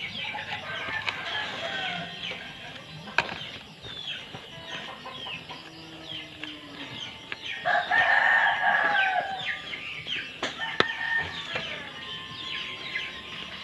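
A rooster crowing once, about eight seconds in, over chickens making short, high, falling calls throughout. A couple of sharp knocks sound in between.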